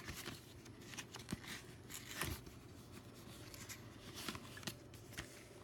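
Light rustling and scattered small clicks and taps as a set of coasters and their packaging are handled.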